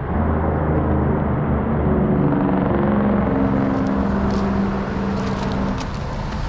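A motor vehicle's engine drone passes, its hum shifting slightly in pitch before fading near the end, over a steady low rumble. In the second half, footsteps crunch on loose railway ballast gravel.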